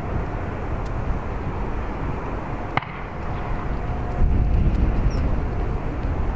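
Strong wind buffeting the microphone in a steady low rumble, despite a furry windshield, over the distant drone of a jet airliner with a faint steady whine. A single sharp click comes about three seconds in.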